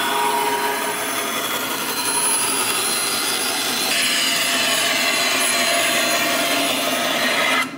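Bandsaw running steadily as its blade cuts around a cardboard concrete-form tube that is turned against it; the sound shifts slightly about halfway through.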